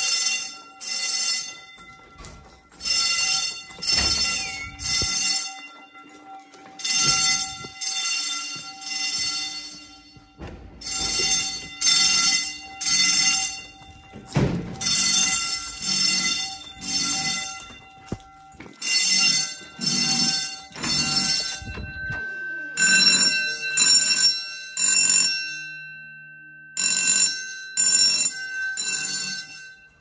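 School fire alarm notification appliances sounding the temporal-three evacuation signal: three short pulses, a pause, and again, repeating about every four seconds. The level rises and falls as the appliances come nearer and go farther away.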